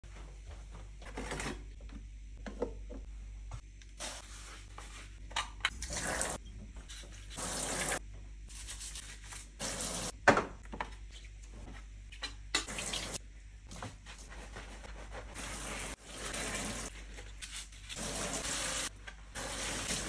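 A kitchen tap splashing water into a stainless steel sink in repeated runs of a second or two, while coffee machine parts are scrubbed with a brush and rinsed under it. A sharp knock about ten seconds in.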